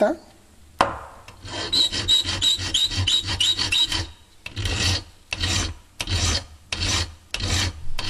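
Flat hand file rasping across the tip of a metal rod clamped in a bench vise, thinning the tip down. After a sharp click just under a second in come quick short strokes with a high scraping squeal; after a brief pause, slower separate strokes follow, about one and a half a second.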